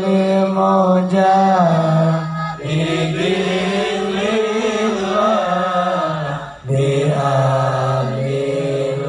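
Amplified male voices chanting Arabic sholawat in long drawn-out held notes, with two short breaks between phrases.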